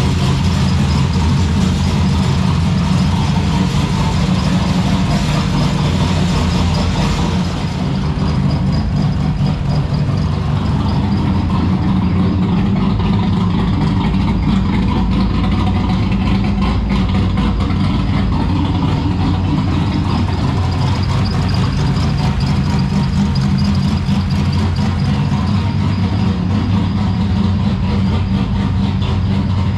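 Turbocharged Holden Ecotec 3.8 V6 idling on a lumpy camshaft, with a loose exhaust part rattling. About eight seconds in, the upper hiss drops away and the idle goes on steadily.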